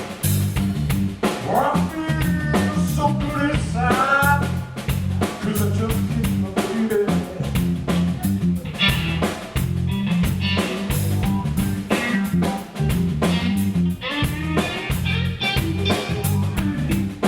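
Live blues band playing an instrumental break: drum kit with frequent rimshots, a bass line, and bending lead lines over the top.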